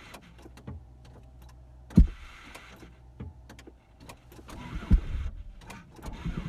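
A car that will not start in deep cold being cranked with the key: two sharp clunks about two and five seconds in, each with a brief whirr from the starter, and the engine does not catch. Small clicks sound between the attempts.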